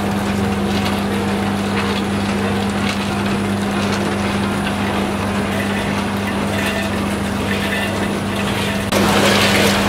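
Snack packing line machinery running: a steady low hum with an even mechanical rattle and hiss over it. It gets louder about nine seconds in.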